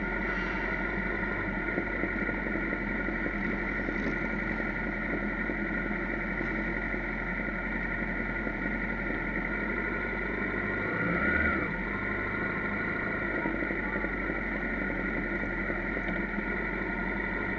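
Motorcycle engines running at low speed as a group of bikes rolls along slowly, a steady drone through a small camera's microphone, with one brief louder engine swell about eleven seconds in.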